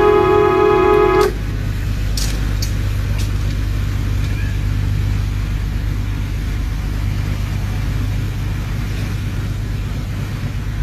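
A horn holds a loud steady note and cuts off suddenly about a second in. Then comes the steady low rumble of a boat's engine, with a few faint clicks about two to three seconds in.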